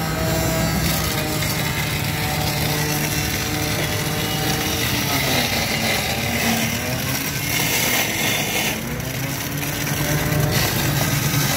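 Electric juicer motor running steadily while pomegranate arils are pressed into it. It has a low hum, and its pitch sags and recovers around the middle.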